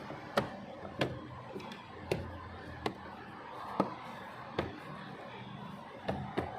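A series of sharp clicks or knocks, about one a second and unevenly spaced, over a low steady hum.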